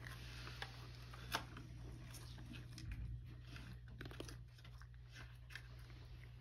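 A domestic cat eating from a shallow dish: small, irregular clicks and smacks of chewing and licking, with a few slightly louder crunches.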